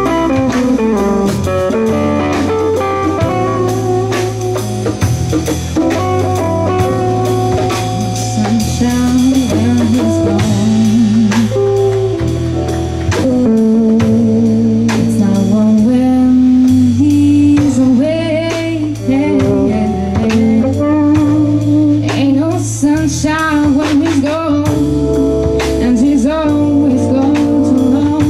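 A live band plays a slow blues-jazz number: an archtop electric guitar played lead over drum kit, bass and keyboard. From about halfway a female voice sings over the band.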